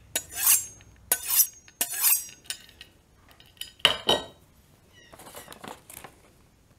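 Steel kitchen knife blade drawn briskly along a butcher steel in several quick, ringing scrapes, honing the edge straight rather than grinding it. Around four seconds in there is a sharper metallic clink, then a soft paper rustle near the end.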